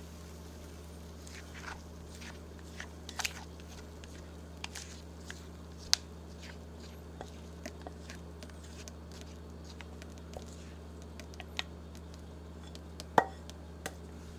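Faint, scattered small clicks and pops from thick, aerated pancake batter settling in a small cast-iron pan, with a sharper click near the end, over a steady low hum.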